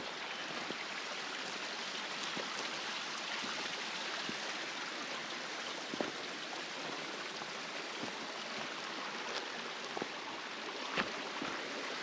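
Steady rushing water of a mountain stream, with a few sharp clicks standing out above it about six seconds in and near the end.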